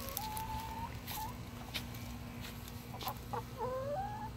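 A hen making drawn-out whiny calls: one held note near the start, then a few rising calls near the end. A few light clicks sound between the calls.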